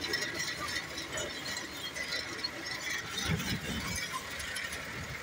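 A tractor being driven, its metal parts and canopy frame rattling and squeaking over engine and ride noise, with low knocks about three seconds in.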